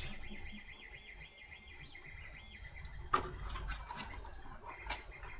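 3D printer stepper motors singing in quick, repeated short pitched chirps as the print head shuttles back and forth near the end of a print, followed by a few sharp clicks about three and five seconds in.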